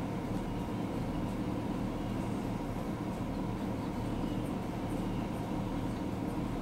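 A vehicle engine running steadily: a constant low hum with no change in pitch or level.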